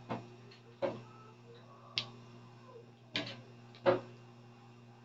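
Kitchen utensils knocking against cookware: five short, sharp clinks, irregularly spaced about a second apart, over a faint steady low hum.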